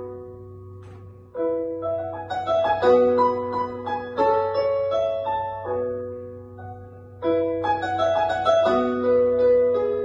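Roland GO:PIANO digital piano playing a slow original melody in phrases: the held notes die away at first, a new phrase starts about a second and a half in, and another after a lull around seven seconds. A faint low hum runs underneath.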